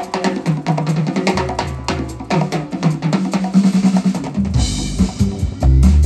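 Live instrumental band music: drum kit, electric guitars, synth, bass and congas. Busy drumming builds to a cymbal crash about four and a half seconds in, where a deep bass comes in strongly.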